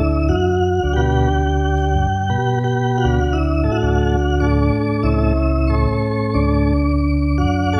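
Organ playing slow, sustained chords that change every second or so, with a wavering vibrato on the higher notes.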